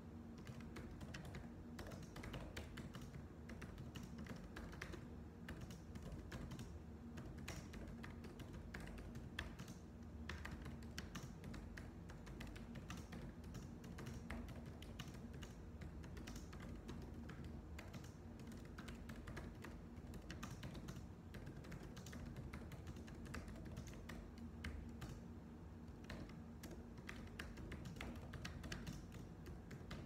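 Typing on a computer keyboard: a continuous, irregular stream of soft key clicks.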